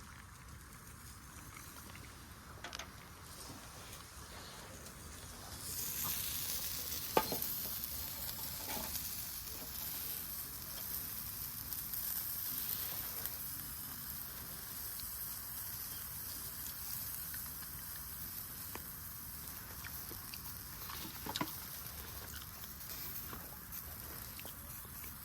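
Meat sizzling on a Swedish torch, with a steady hiss that starts about six seconds in. A few sharp pops stand out, the loudest about seven seconds in and again near twenty-one seconds.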